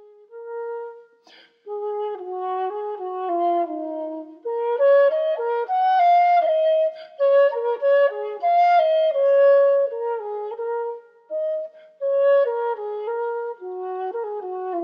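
Background music: a melody played on a wind instrument, one held note after another, with a brief pause about a second in.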